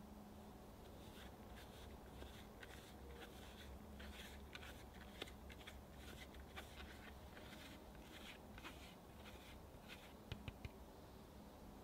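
Cocoa powder being sifted through a small fine-mesh metal sieve: a faint, dry, scratchy rustle of quick ticks, with three quick sharp taps near the end.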